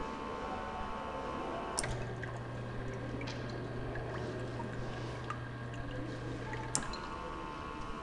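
A model conveyor belt's small motor whines, then stops with a click about two seconds in. The filler then hums steadily for about five seconds with the sound of liquid filling a container. It cuts off with a click and the belt motor's whine resumes.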